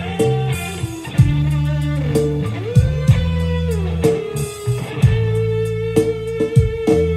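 Instrumental music with electric guitar and bass, played back through a Nexo PS12 PA loudspeaker as a sound check. Deep sustained bass notes and sharp beats sit under a lead guitar line that slides and bends up and down.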